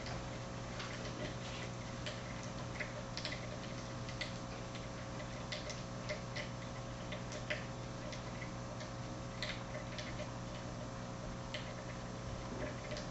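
Faint, irregular ticks and small pops, a couple a second, from tiny flashes of ethanol burning where potassium permanganate crystals react at the ethanol–sulfuric acid interface, over a steady low electrical hum.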